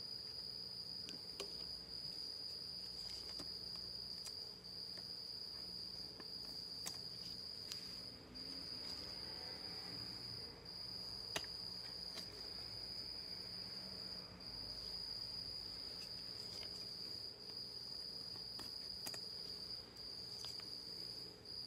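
A house cricket singing a steady, high-pitched trill that breaks off briefly a few times, with faint clicks from trading cards in plastic holders being handled.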